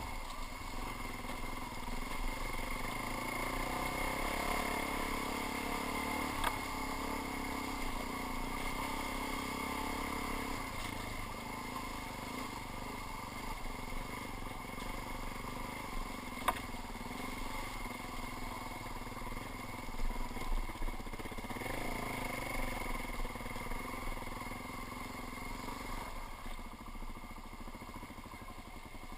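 Suzuki DR-Z400 dual-sport motorcycle's single-cylinder four-stroke engine running as the bike rides a rough, rocky trail. Two sharp clicks and a few thuds come from the bike working over the stony ground. The engine quietens near the end as the bike slows.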